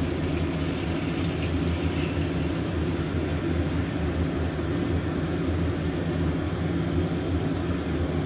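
Shrimp and egg cooking in sauce in a wok over a low flame, heard as a steady low rumble with a faint sizzle over it.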